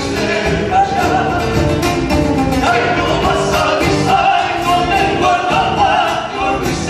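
Latin American folk music playing steadily.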